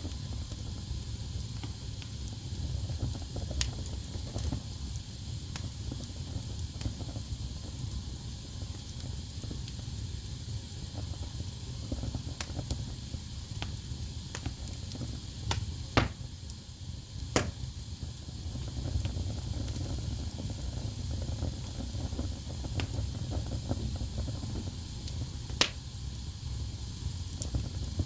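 Wood fire burning in a fireplace: a steady low rumble of flames with scattered crackles and a few sharp pops, the loudest about halfway through and again near the end.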